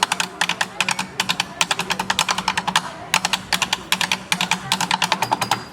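Rapid sharp clicking taps in quick runs, several to about ten a second with short breaks between runs, over a steady low hum.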